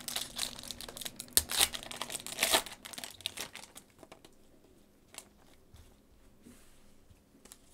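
Merlin Chrome card-pack wrapper crinkling and tearing open, dense for about three seconds, then a few scattered crackles.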